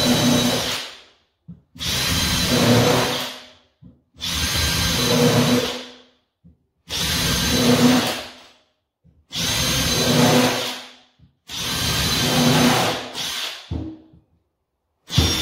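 Makita 18V cordless combi drill with a countersink bit drilling pilot holes through wooden floorboards into the joists. It runs in about seven bursts of roughly two seconds each with short pauses between, a steady motor whine over the cutting noise; each burst pilots and countersinks a hole for a screw.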